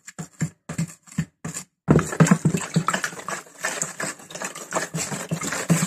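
Wooden spoon stirring dry yeast into a liquid in a plastic bowl. There are a few separate strokes at first, then fast, continuous stirring from about two seconds in.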